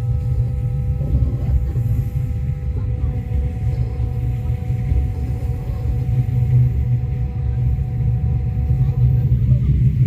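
Steady low rumble of a moving passenger train, with a few faint steady hums above it.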